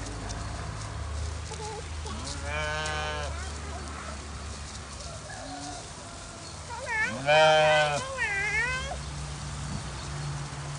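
Sheep bleating: a quavering bleat about two seconds in, then a louder one around seven seconds with a few shorter bleats after it, likely from lambs waiting for bottled milk.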